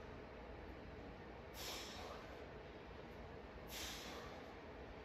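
A man's sharp exhalations of effort, two of them about two seconds apart, one with each push of the hips up during the exercise.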